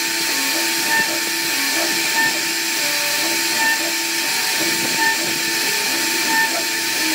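CNC router spindle running and cutting wood: a steady hissing whine with a fixed tone in it and a slight swell in level about once a second.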